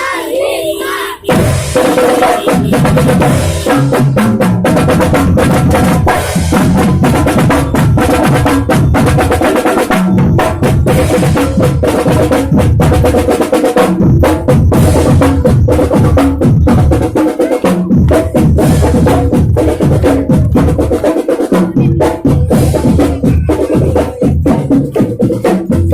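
Marching band playing: a drumline of snare and bass drums beating a steady, dense rhythm under a sustained melody.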